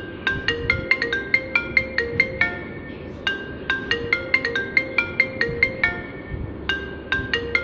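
iPhone ringtone playing a quick marimba-like melody of bright struck notes, about four or five a second, repeating in phrases of roughly three seconds with a brief pause between phrases.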